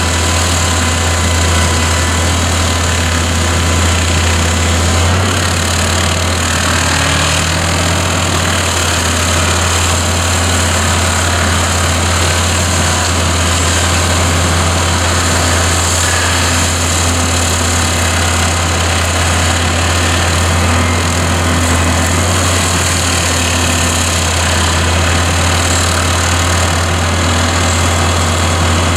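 RF-System HSF 65 hydraulic high-speed stump grinder on an excavator, its spinning cutter wheel milling steadily into a tree stump, with a steady low engine drone underneath.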